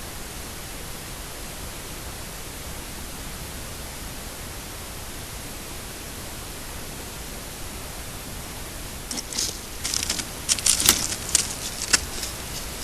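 Steady hiss, with a cluster of sharp crackles and snaps about nine seconds in that lasts some three seconds.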